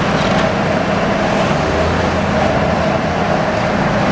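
Demolition excavator's diesel engine and hydraulics running, a loud steady drone with no distinct impacts.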